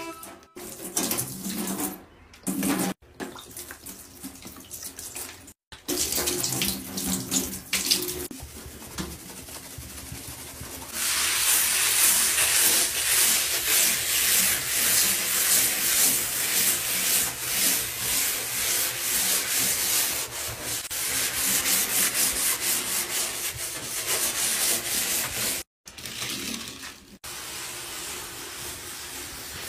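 Sink-cleaning sounds in short clips with abrupt cuts: water running from a tap into the basin and a brush scrubbing its surface. Through the middle there is a long, loud, steady hiss.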